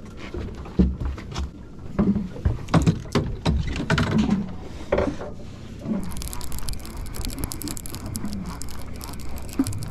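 Knocks and thuds of a caught vermilion rockfish and its tackle being handled and unhooked on a boat deck. About six seconds in they give way to a steady hiss of water and wind with fine ticking as the line goes back down over the side.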